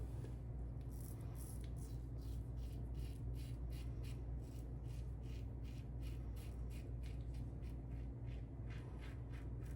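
Tatara Amakuni stainless single-edge safety razor with a Kai Captain Titan blade scraping through lathered stubble in quick, short strokes, about four a second, faint.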